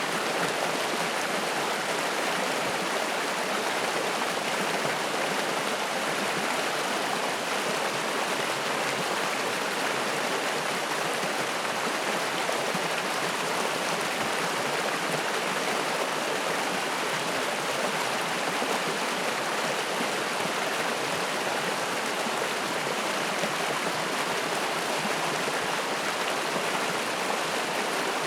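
Spring-fed mountain stream rushing and splashing in a steady, unbroken flow.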